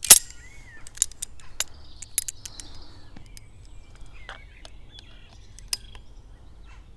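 A few sharp clicks as steel locking pliers are handled and clamped onto a thread tap that is being turned slowly to cut a new thread into a camera's tripod socket. The loudest click comes right at the start. Birds chirp now and then in the background.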